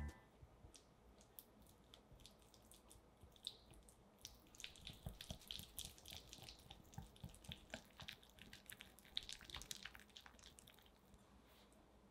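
Faint, quick clicks and soft squishes of a whisk working softened unsalted butter in a glass bowl, creaming it. The clicks come thickest through the middle.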